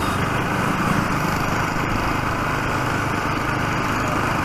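Motorcycle engine running steadily while riding, a constant hum with no change in speed.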